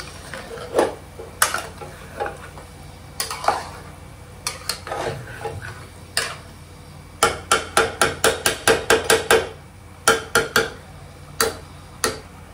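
Metal spoon stirring a spiced chicken mixture in a pressure cooker pot, knocking and scraping against the metal: scattered clanks, then a quick run of about ten over two seconds, about seven seconds in.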